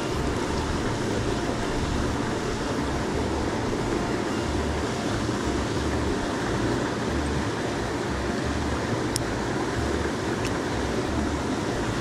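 Small mountain stream rushing steadily over rocks.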